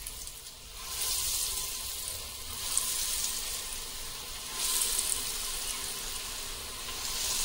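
Pakoras of raw grated potato in egg and besan batter deep-frying in hot oil in a frying pan, the oil sizzling and bubbling around them. The hiss swells about a second in and again a little past halfway as more pakoras go into the oil.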